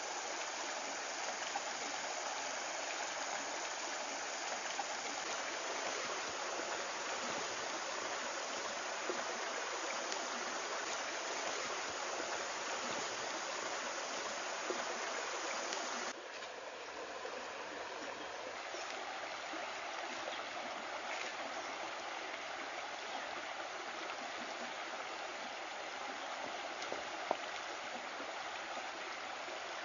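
Shallow rocky stream flowing, a steady rush of water that drops a little in level suddenly about halfway through, with one short tick near the end.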